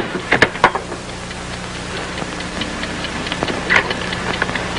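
Telephone handset clicks: several sharp clicks in the first second as the receiver goes down on its cradle, then fainter clicks about three to four seconds in as it is lifted again to call the operator. A steady low hum runs underneath.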